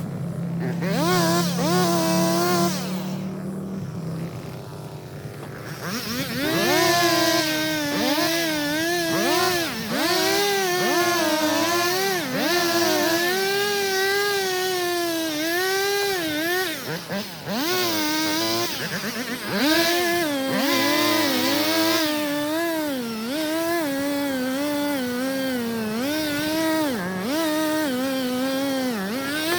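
Chainsaw engine running at high revs, its pitch repeatedly dipping and climbing back as the saw is loaded in the cut. The first few seconds are steadier and lower, with a short drop before it picks up.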